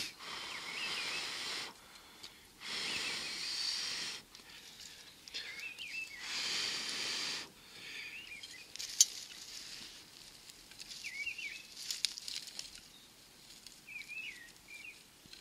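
A person blowing onto hot embers to set a tuft of tinder alight, in several long breaths of about a second and a half each that grow fainter after the first half, with one sharp click near the middle. A small bird chirps briefly every few seconds.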